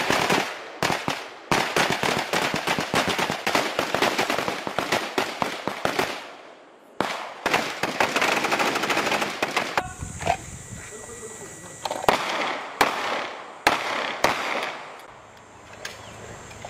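Several AR-pattern carbines firing rapid strings of shots that overlap densely for about six seconds. After a brief pause comes another fast string, then spaced single shots in the second half.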